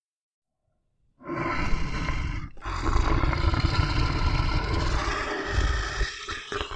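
Bear growling. After about a second of silence comes a short, rough growl, then after a brief break a longer growl lasting several seconds, with another one starting near the end.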